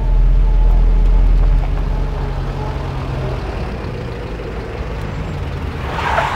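Minibus engine running steadily as it drives up a snowy road. Near the end there is a short hissing rush, as a car brakes hard on the snow.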